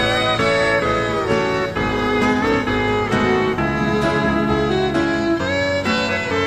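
Background instrumental music with melodic lines over a steady accompaniment, strings and guitar among the instruments.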